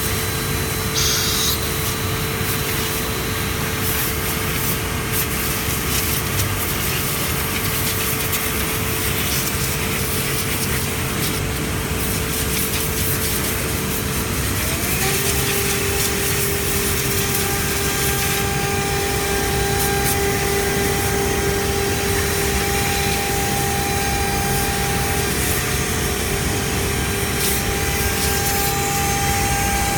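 CNC machine running with a steady noise and a spindle whine; about halfway through a second tone glides up and holds at a higher pitch as the speed changes.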